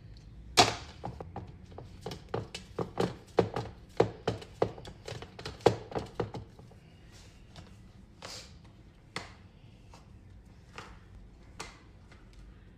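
Knocks and clunks from the Ninja blender with its cup of frozen fruit, several a second for about six seconds, then a few scattered taps. No steady motor run is heard.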